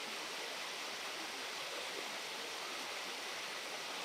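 Fast, rocky river rushing steadily over stones and riffles: an even, unbroken water noise.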